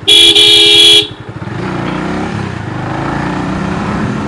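Motorcycle horn sounding once for about a second, a loud two-pitched beep that cuts off sharply. After it the motorcycle's engine runs on steadily with road and wind noise at low riding speed.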